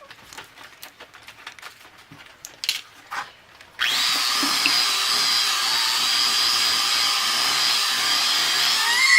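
Electric kitchen mixer switched on about four seconds in and running steadily with a high whine, mixing cookie dough. Before it starts, a few light clicks and taps.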